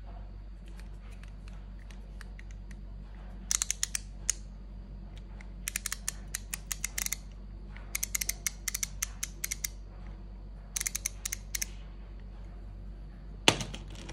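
Craftsman ratcheting screwdriver's ratchet clicking as the bit holder is turned by hand, in four runs of rapid clicks. One louder knock near the end.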